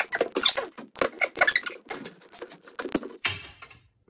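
Miele front-loading washing machine's rubber door seal being pressed and worked by hand onto the drum opening: a rapid run of scratchy rubbing and squeaky taps. Near the end the glass porthole door is swung shut with a short heavier rustle.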